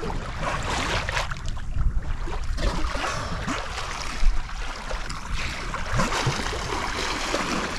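Water rushing and splashing along the hull of a sailboat moving under sail, with wind buffeting the microphone in a low rumble. The sound is steady, with one brief louder moment about four seconds in.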